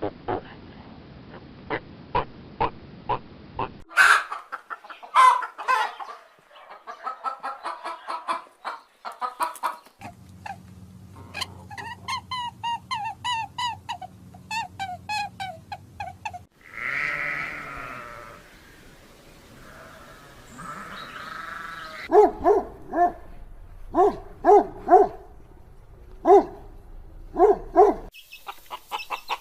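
A run of different farm animals calling in short clips cut one after another: pigs grunting at the start, several other animals' calls in the middle, and chickens clucking near the end.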